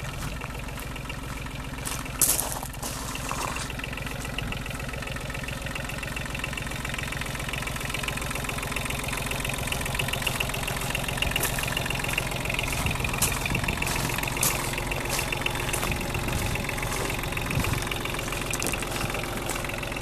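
1985 Kubota KH35 Bullpet mini excavator's diesel engine idling steadily, with a brief sharp knock about two seconds in.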